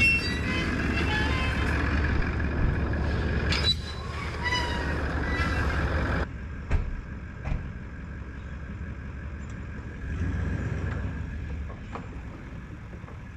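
A vehicle engine runs with a low rumble while a metal wire gate and its chain rattle and clink as the gate is unlatched and swung open. About six seconds in the sound changes abruptly to a quieter, more distant engine, which swells as the vehicle pulls out towing a jet ski on its trailer.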